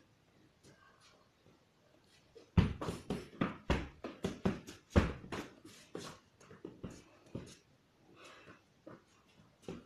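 Gloved strikes landing on a hanging heavy punching bag: a rapid flurry of thuds, about four a second, starting between two and three seconds in and thinning out after about seven seconds.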